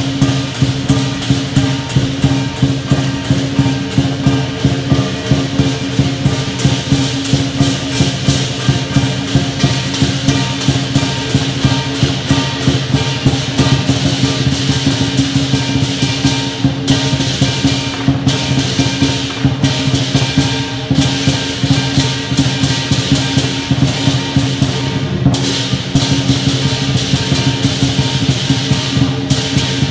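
Lion dance percussion: a Chinese drum, clashing cymbals and a gong playing a fast, steady beat, the cymbal clashes briefly dropping out a few times in the second half.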